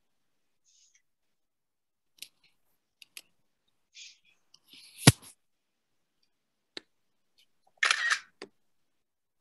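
Scattered small clicks and handling noises, with one sharp click about five seconds in and a short rustle near the end.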